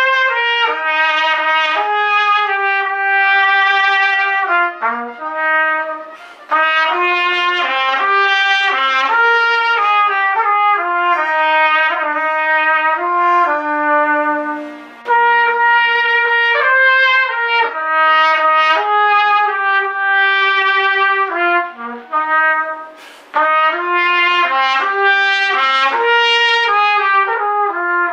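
A small trumpet-family brass instrument, shown as a pocket trumpet and a cornet, playing a solo melody. The notes are mostly held, and the line breaks off briefly about three times.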